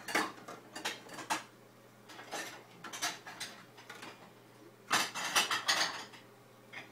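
Dishes clinking and clattering as a toddler handles and stacks them in a low kitchen cupboard, in several short irregular bursts, the busiest about five seconds in.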